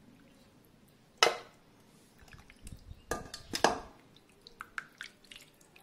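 Raw chicken pieces lifted by hand out of water in a glass bowl: splashing, sloshing and dripping, with a sharp knock about a second in and a burst of wet splashes around the middle.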